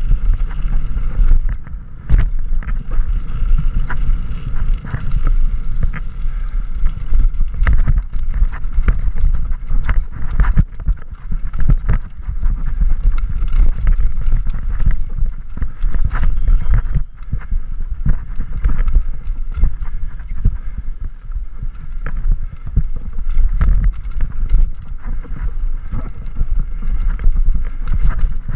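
Wind buffeting the microphone of a camera riding on a mountain bike descending a rough trail, under a constant clatter of knocks and rattles as the tyres and bike hit rocks and roots.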